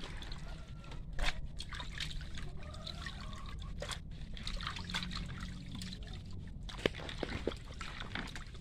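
Hands washing cut fish chunks in a basin of water: irregular sloshing, splashing and trickling as the pieces are rubbed and lifted out dripping. It is a rinse to wash off the fishy smell.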